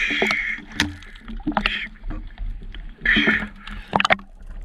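Water splashing and sharp knocks as a speared grouper thrashes on the spear shaft at the surface, with three heavy breaths through a snorkel about a second and a half apart.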